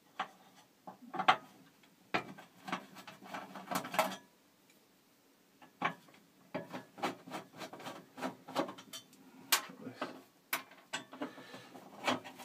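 Irregular clicks, taps and rattles of a screwdriver and small screws, clips and metal parts being worked in the open chassis of a Yamaha DX7 synthesizer as a circuit board is unscrewed and freed, with a short pause about halfway.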